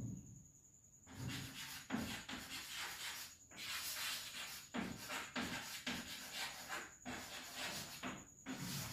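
Chalk scraping on a blackboard as a word is handwritten: a run of short scratchy strokes starting about a second in, with a couple of brief pauses.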